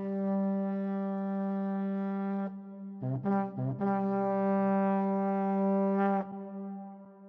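Intro music in a brass fanfare style: a long held note, three short notes about three seconds in, then another long held note that fades out near the end.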